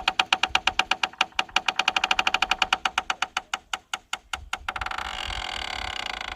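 Wooden farm gate's hinge creaking as the gate swings: a rapid train of clicks, about ten a second, that slows and spaces out, then about four and a half seconds in turns into one continuous creak.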